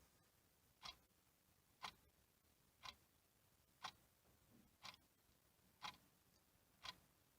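Clock ticking faintly and evenly, about one tick a second.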